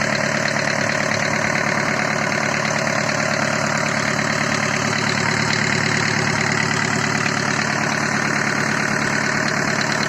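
Mitsubishi FE truck diesel engine idling steadily.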